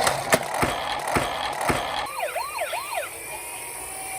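Toy ambulance minicar: a rattle with a few sharp clicks, then about halfway through a short electronic siren sweeping rapidly up and down a few times, fading to a faint steady tone.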